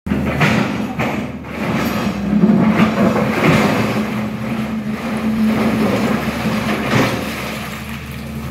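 SANY excavator's diesel engine running steadily, with the bucket scraping and knocking against broken rock in the bottom of a well pit; the sharpest knock comes about seven seconds in.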